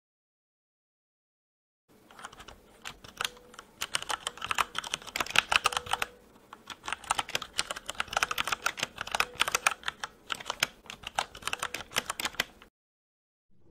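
Rapid computer-keyboard typing clicks, used as a sound effect for on-screen text being typed out. The clicks start about two seconds in, break off briefly around six seconds in, then resume and stop shortly before the end.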